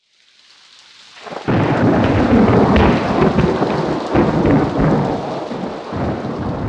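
Rolling thunder: a rumble that swells over the first second and a half, then a loud, uneven roll with surges that eases off near the end.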